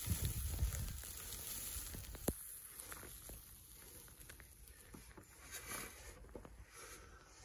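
The tail of a snow slide off a roof: the low rumble dies away over the first couple of seconds. It leaves faint patter and small ticks of settling, falling snow, with one sharp tick about two seconds in.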